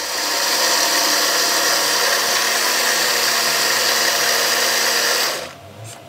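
Electric mixer grinder running at full speed, its stainless steel jar grinding cooked tomatoes into a paste; it starts at once, runs steadily and is switched off about five seconds in, winding down.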